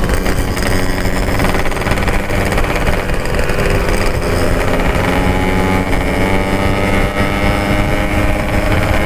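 Yamaha RX-King two-stroke single-cylinder motorcycle engine, fitted with a 'packing power' exhaust, running steadily at cruising speed while being ridden. Its pitch holds nearly even, shifting only slightly.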